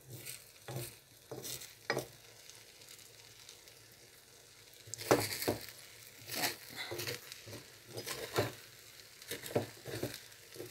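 Metal spatula scraping and prodding under the edge of a potato-and-egg omelette to loosen it where it has stuck to the frying pan, over a steady sizzle of frying. The scrapes are sparse at first, then come thicker and louder from about halfway through.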